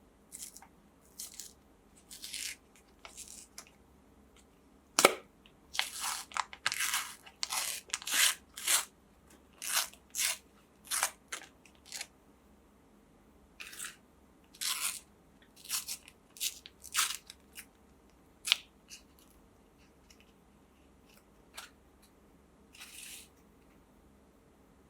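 Crisp wafer of a butterscotch ice cream cone crunching and cracking as a meat grinder breaks it up, in short, irregular crunches with a sharp crack about five seconds in. The crunching is thickest through the middle and thins out towards the end.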